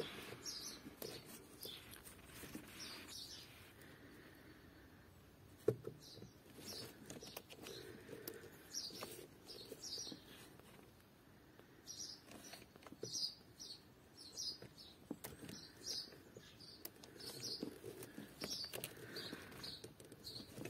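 Small birds chirping repeatedly, faint in the background. Over them come light clicks and scrapes of a pocket knife prying at the plastic transport plugs on a new car battery, with one sharper click about six seconds in.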